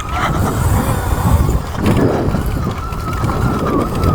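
Sur Ron electric dirt bike riding on a trail: a steady high whine from the electric motor and chain drive under power, over a heavy low rumble of wind buffeting the microphone and tyre noise.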